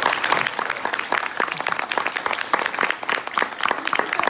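Audience applauding: dense, irregular clapping from many hands.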